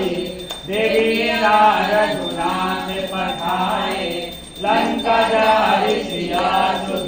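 Voices chanting a Hindu devotional hymn to Hanuman during an aarti, in sung phrases broken by short pauses.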